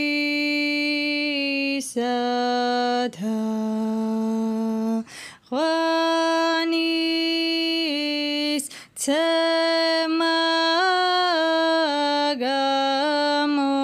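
A single voice singing one part of a Georgian Orthodox church chant unaccompanied. It moves slowly through long held notes, with a few short breaks between phrases.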